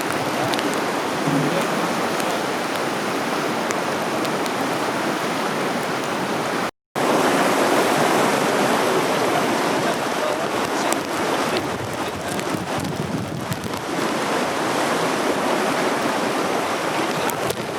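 Swollen floodwater rushing in a steady, loud wash of noise. The sound drops out for a moment about seven seconds in, then resumes.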